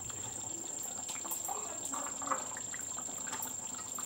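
Thick chicken and potato curry simmering in a pan, bubbling with scattered soft pops, over a steady high-pitched whine.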